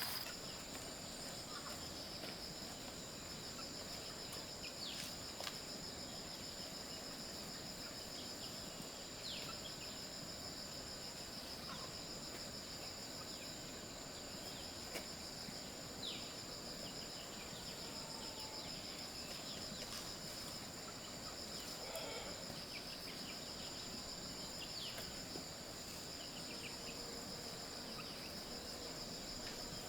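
Insects calling in a steady, high-pitched drone, with faint short chirps scattered here and there.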